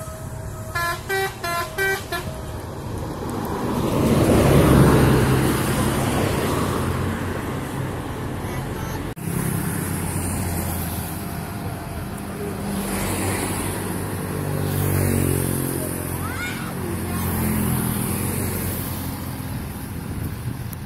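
A telolet horn, the multi-tone musical horn fitted to Indonesian buses, sounds a quick run of short notes about a second in. A heavy vehicle then passes close by, its engine and tyre noise swelling to a peak about five seconds in. More heavy-vehicle engine noise rises and falls after that.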